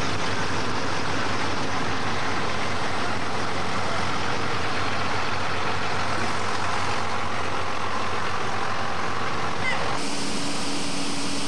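School bus engine running close by: a steady, noisy rumble. It changes abruptly near the end, where a steady low hum comes in.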